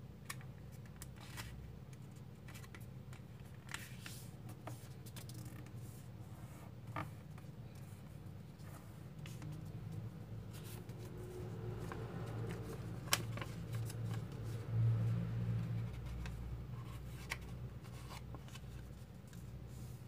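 Square origami paper being folded and creased by hand on a wooden table: rustling with scattered sharp crinkles and clicks as the creases are pressed. A dull low rumble swells about three quarters of the way through and is the loudest part.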